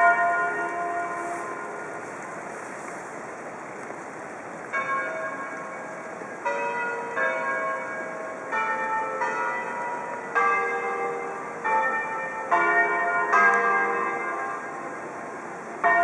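Church bells ringing: about a dozen strikes on bells of several different pitches, unevenly spaced, each ringing on and fading after it is struck. A single strike at the start is followed by a lull of about four seconds, then strikes come roughly once a second.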